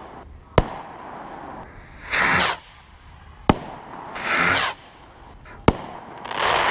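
Firework rockets launching one after another from a fuse-lit homemade multiple rocket launcher: three sharp cracks alternating with three short rushing whooshes.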